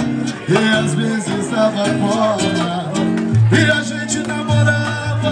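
Live pagode music: a band playing the song's instrumental introduction on guitar or cavaquinho with bass and percussion.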